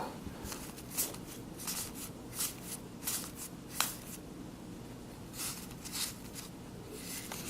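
Baseball trading cards being flipped through by hand: short, irregular flicks and slides of card against card, about one or two a second.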